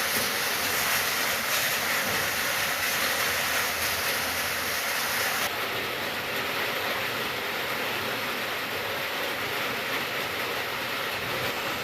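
Steady rain falling, a constant hiss of drops; the highest part of the hiss drops slightly about halfway through.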